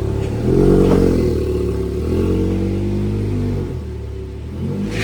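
A car engine running, with short rises in revs about a second in and again just after two seconds.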